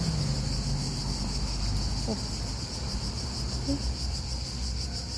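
Insects chirring in a steady, high-pitched pulsing chorus of several beats a second, over a low rumble.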